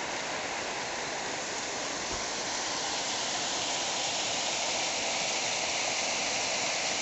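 A steady, even rushing hiss with no distinct events, growing slightly louder toward the end.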